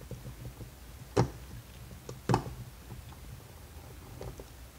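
Two sharp clicks a little over a second apart, with fainter small ticks between: a screwdriver and small screws being handled while a vacuum cleaner motor is taken apart.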